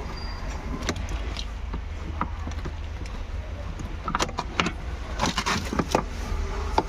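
Light metallic clicks and clinks of tools and metal parts being handled during gear-cable work, sparse at first, then coming in a quick, louder cluster in the second half. A low steady hum runs underneath.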